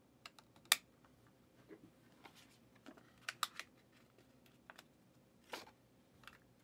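Scattered light clicks and taps of hard plastic card holders being handled on a tabletop. The loudest click comes under a second in, a quick cluster of clicks about three and a half seconds in, and a short scrape about five and a half seconds in.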